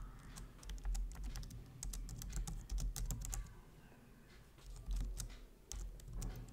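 Typing on a computer keyboard: irregular runs of key clicks, with a short pause a little past halfway.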